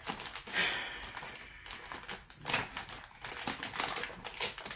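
Clear plastic zip bag crinkling and rustling as hands rummage inside it, with quick irregular clicks of small jars knocking together.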